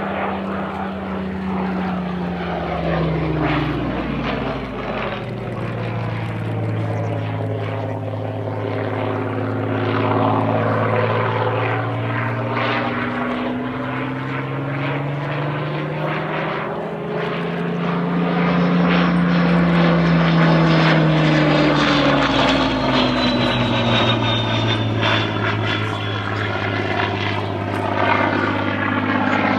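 Spitfire LF Mk.Vb's Rolls-Royce Merlin V12 engine and propeller flying manoeuvres overhead, the engine note gliding down and up in pitch again and again as the aircraft passes and changes power. It is loudest a little past halfway, with a high whine falling in pitch near the end.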